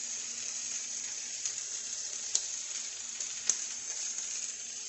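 Meat and vegetables frying in butter and olive oil in a pan, sizzling steadily, with a few sharp clicks.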